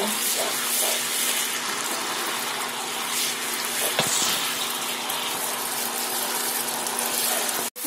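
Spice paste with whisked yogurt sizzling steadily in hot mustard oil in a wok, stirred with a metal slotted spatula as the masala is fried down until the oil separates. The sizzle cuts off abruptly near the end.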